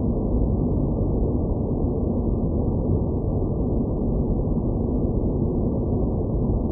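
Steady, low, muffled noise with nothing above a dull ceiling and no distinct events: a synthesized space-planet ambience drone.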